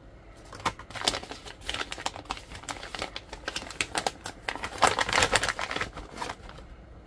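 Yellow paper padded envelope and a plastic blister pack being handled: irregular crinkling and rustling full of small clicks and crackles, busiest about five seconds in.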